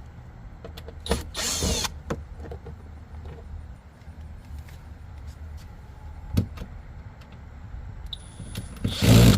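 Cordless drill/driver spinning out the Phillips head screws of a truck door panel in two short runs, one about a second in and one near the end, with small clicks and knocks between.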